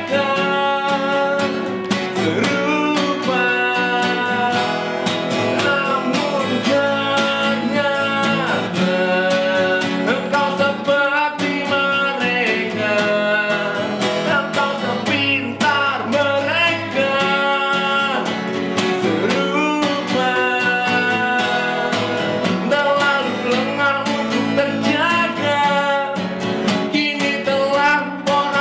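A man singing in Indonesian over a strummed acoustic guitar, a live acoustic rock performance.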